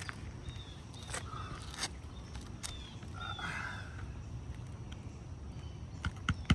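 Scattered light clicks and knocks of handling on an asphalt shingle roof, with a few faint short bird chirps. About six seconds in, the first quick hammer taps on a roofing nail begin.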